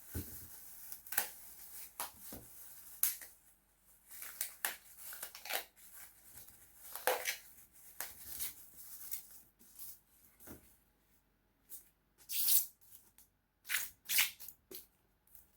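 Knife cutting through a watermelon: a run of short, crisp cutting and crunching noises with handling sounds, thinning out to a few separate cuts in the last few seconds.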